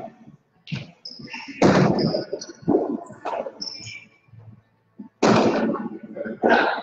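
Jai alai pelota smacking against the fronton's walls and floor in play: a string of sharp cracks, each ringing out in the hall's echo, the loudest about a second and a half in and again just past five seconds.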